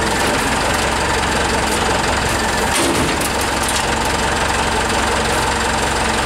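Forklift engine running at a steady idle.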